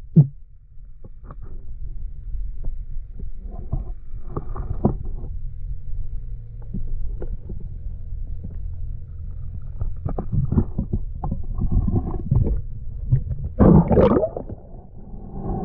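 Muffled underwater sound from a camera carried by a swimming diver: a steady low rumble of water moving around it, with scattered small knocks and clicks and a louder burst of noise near the end.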